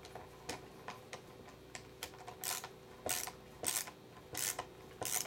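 Screwdriver driving pickguard screws into a bass guitar body by hand: a few light clicks, then from about two seconds in short scraping strokes, one every two-thirds of a second or so.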